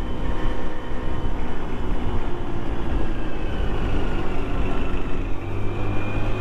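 A Lexmoto Echo 50cc moped running along the road, with heavy wind rumble on the camera microphone. A faint engine hum and a thin whine rise slightly in pitch and grow a little stronger about four seconds in, as the moped comes back on the throttle through a bend.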